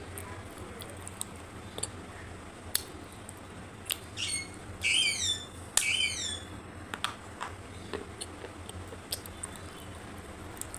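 Sharp crunching clicks, spaced out, as something brittle is bitten and chewed close to the microphone. From about four to six and a half seconds in there are two loud runs of quick, high, falling chirps.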